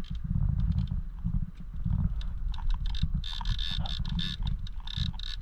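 Wind buffeting the microphone on an open fishing boat, a gusty low rumble, with scattered light ticks and a higher hiss that grows from about three seconds in.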